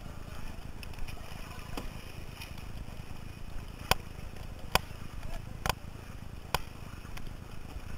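Four-person racing canoe paddled hard: a steady rush of water and wind, with a sharp knock of a paddle on each stroke, about once a second from about four seconds in.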